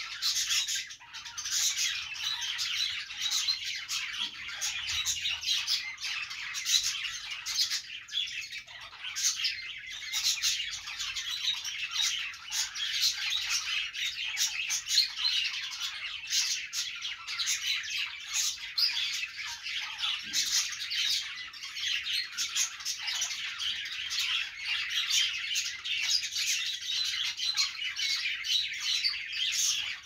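A flock of budgerigars chattering together: many overlapping chirps, warbles and squawks, without a pause.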